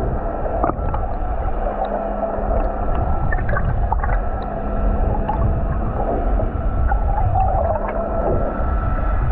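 Underwater sound heard through a diving camera's housing: a muffled rumble of moving water with a steady low hum and scattered faint clicks.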